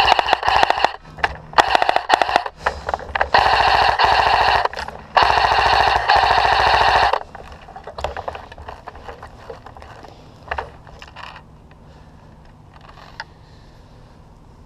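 Close airsoft rifle firing full-auto in several bursts, a rapid buzzing rattle of BB shots, the longest burst lasting about two seconds. After about seven seconds the firing stops, leaving only a few isolated sharp cracks.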